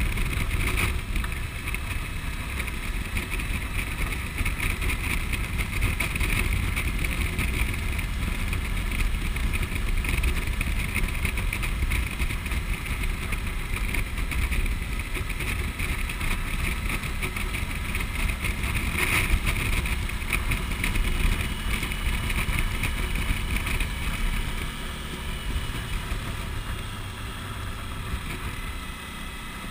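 Motorcycle riding at steady road speed, heard from the rider's seat of a Suzuki V-Strom: the bike's engine and heavy wind rumble on the action-camera microphone. It eases off slightly near the end.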